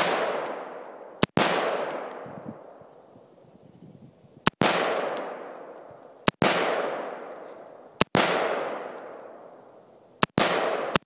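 Unsuppressed Bushmaster AR-15 rifle firing slow single shots, about six, one to three seconds apart. Each shot is a sharp crack followed by a long echo that rolls off over the next second or two.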